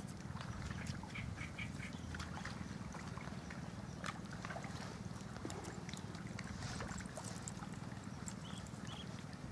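Steady low rumble with a few faint, short, high animal calls: a quick run of four about a second in and two more near the end, with scattered faint clicks.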